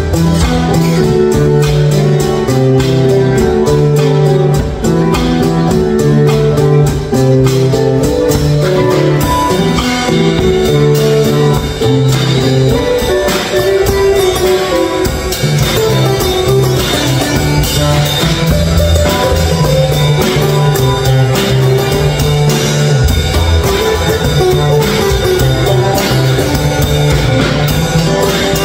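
Two acoustic guitars and a drum kit playing a song together, the guitars over a steady drum beat.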